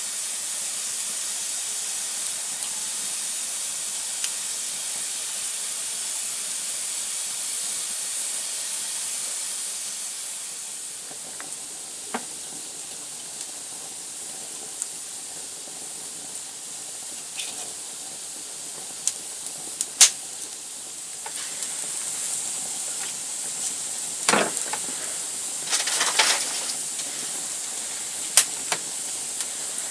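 Wood campfire burning with a steady high hiss and scattered sharp crackles and pops, most of them in the second half.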